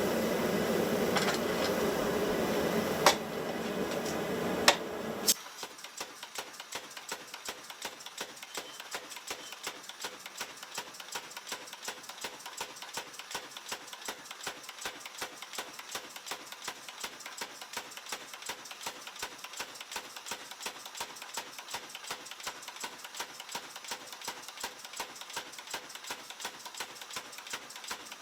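Power hammer working hot steel. For the first five seconds there is a loud, steady rushing noise broken by three sharp bangs. About five seconds in this gives way abruptly to a quieter, fast, even run of strikes that keeps going.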